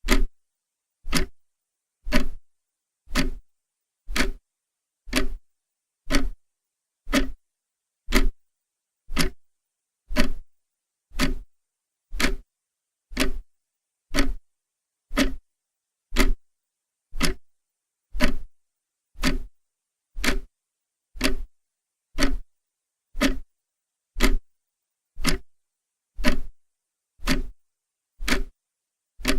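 Clock ticking steadily about once a second, each tick a short sharp click with dead silence between ticks.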